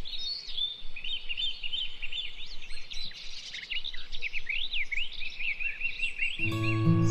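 Wild birds chirping and calling: many short, high notes that rise and fall, overlapping, with a fast run of repeated notes shortly before background music comes back in near the end.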